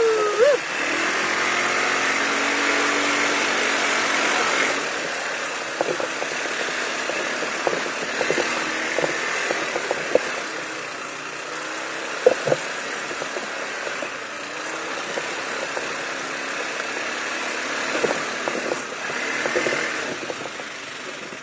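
ATV engine running as the quad is ridden through a shallow stream and up a rough jungle trail. It is louder for the first four seconds or so, then quieter, with scattered knocks and rattles from the machine over rough ground.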